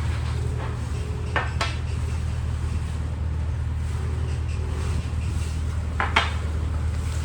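A steady low hum with two pairs of sharp clinks, like dishes or cutlery knocking together, about a second and a half in and again about six seconds in.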